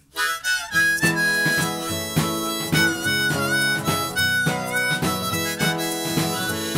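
Acoustic instrumental intro: a harmonica playing a melody of held notes over strummed acoustic guitar.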